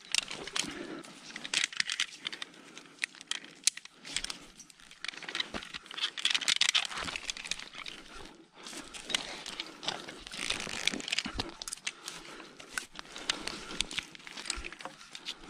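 Rustling and scraping close to the microphone as a climber moves against conifer branches and bark, with many sharp clicks and knocks of rope and climbing hardware.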